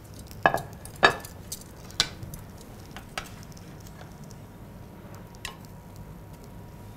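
A ceramic plate knocks down onto the countertop, the loudest two clatters about half a second and a second in. A few lighter clinks follow as a metal spatula and tongs touch the baking tray and the plate while serving the baked chicken breast.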